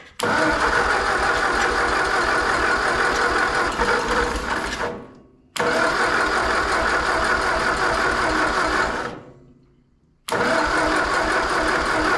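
Ford 8N tractor's four-cylinder flathead engine being cranked by its starter in three long bursts with short pauses between, turning over without catching. The owner takes it to be flooded.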